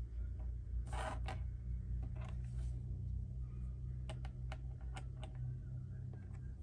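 Small hard plastic toy pieces handled on a wooden tabletop: a brief scrape about a second in, then a run of light clicks and taps as a plastic figure is fitted onto a toy seesaw. A steady low hum runs underneath.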